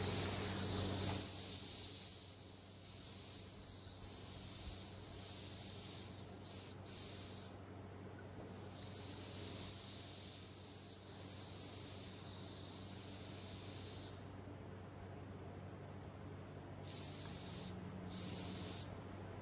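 Wilesco model steam traction engine's steam whistle blown over and over in short and long high, steady toots, with a longer pause near the end, to clear the whistle out.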